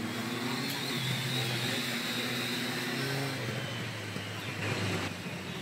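Two Triumph motorcycles' engines running as they ride around the course, their pitch rising and falling as they throttle on and off.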